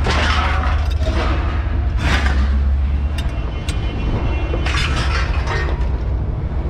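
Scrap metal being thrown off a load: several loud, clattering metal crashes with a few sharp clinks between them, over a steady low rumble.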